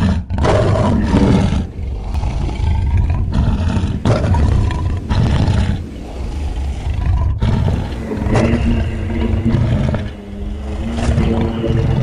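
Designed dinosaur roar sound effect for Saurophaganax: a string of deep, growling roars, about six, with short breaks between them. It starts suddenly, and a steadier, more pitched roar follows about two-thirds of the way through.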